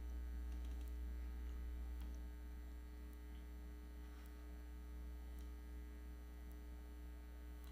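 Steady low electrical hum, mains hum picked up by the recording microphone, with a few faint clicks and no speech.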